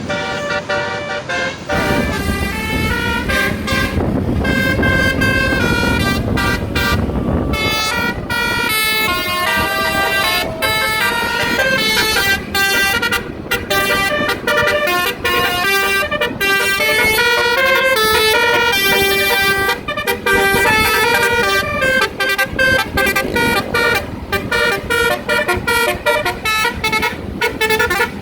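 Basuri telolet multi-trumpet bus horns playing a quick, unbroken run of changing notes, tune after tune. A bus engine rumbles loudly under them for the first several seconds.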